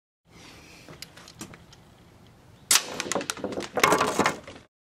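Homemade piston-valve air rifle firing a load of four .177 steel BBs at 120 PSI: a few light clicks, then a sudden sharp pop about two and a half seconds in, followed by a run of clicks and a second burst of clattering about a second later.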